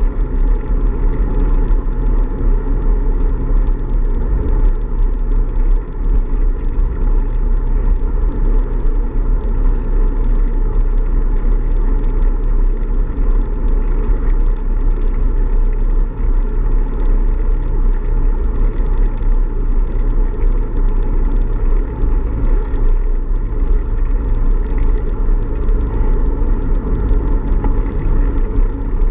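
Steady wind buffeting and road rumble on a bicycle-mounted camera while riding along a paved road, a loud, unbroken low rumble.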